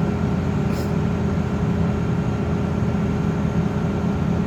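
Excavator-mounted vibratory pile driver and the excavator's engine running steadily, a constant low machine noise with a faint steady hum above it.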